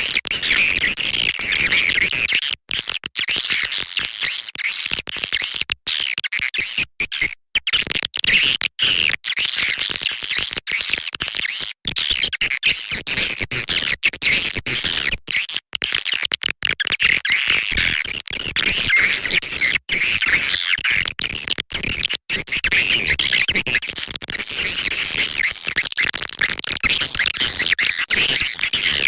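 Recorded swiftlet calls of the kind played to lure swiftlets into a nest house: a dense, unbroken twittering chatter of many birds, cut by frequent split-second gaps where the track drops out.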